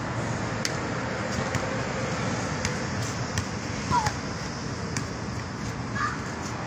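Basketball bouncing on an outdoor hard court: a string of sharp, irregularly spaced bounces of the ball, with two short sneaker squeaks, about four and six seconds in, the first being the loudest moment. Steady background noise runs underneath.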